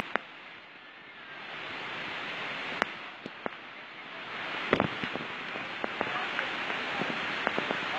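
Steady rushing water noise, with scattered sharp taps and a louder knock a little past halfway.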